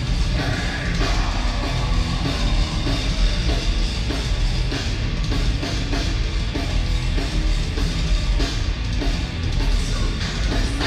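Heavy metal band playing live in an arena: distorted electric guitars in a repeating riff over a drum kit, heard from the audience.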